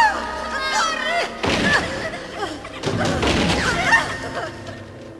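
Dramatic film soundtrack: music with loud crashes and thuds about a second and a half in and again around three seconds.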